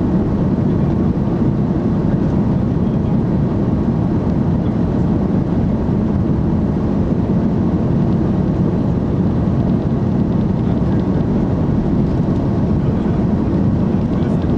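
Jet airliner's engines and rushing air heard from inside the passenger cabin during takeoff: a steady, loud, low rumble.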